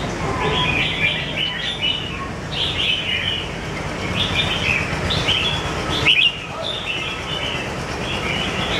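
Red-whiskered bulbul singing: short, bright warbling phrases repeated every second or so, with a sharper, louder note a little after the middle, over a steady low background rumble.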